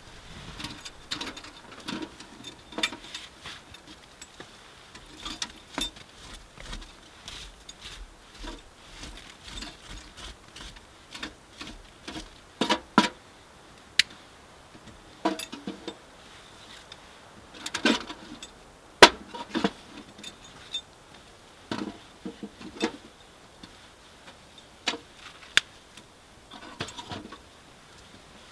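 Dry kindling sticks and twigs being handled and snapped by hand: irregular light cracks, clicks and knocks, with a few sharper snaps in the middle stretch.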